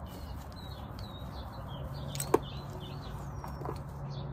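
Small birds chirping in the background. A single sharp click comes a little past halfway, and a low steady hum starts about two seconds in.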